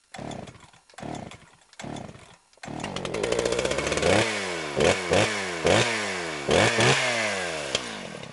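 Small engine pull-started: three short pulls turn it over, it catches on the third and runs. It is then revved in a series of quick throttle blips, each dropping back down in pitch, and fades out near the end.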